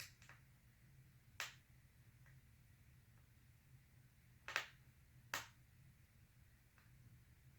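Small sharp clicks of a precision screwdriver and tiny screws against the laptop's plastic display lid, as the display's corner screws are taken out: four distinct clicks, two of them close together past the middle, with a few fainter ticks between, over a low steady hum.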